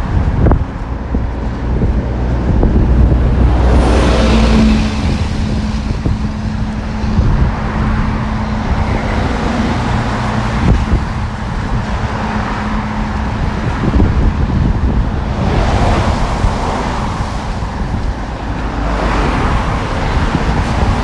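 Road traffic going past on a wet road, with tyre hiss swelling as vehicles pass about four seconds in and twice near the end, over wind rumbling on the microphone.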